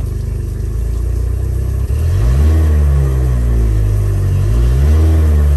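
Honda four-stroke outboard motor idling, then revved up about two seconds in to around 2,000 RPM and held there, dipping briefly and rising again near the end.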